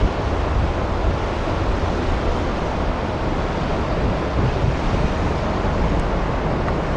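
Wind blowing across the microphone: a steady rushing noise with a heavy low buffeting rumble.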